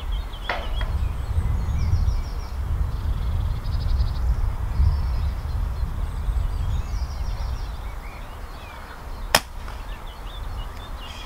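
A single shot from a .22 pneumatic air rifle, one sharp crack about nine seconds in: the shot that takes a rabbit with a head shot. Wind buffets the microphone throughout, and small birds chirp.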